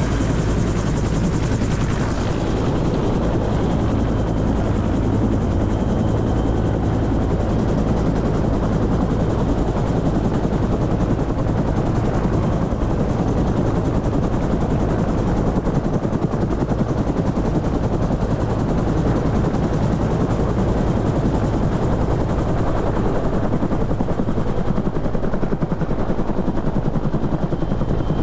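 Helicopter running at close range, a steady loud mix of rotor beat and engine whine with no change in pace.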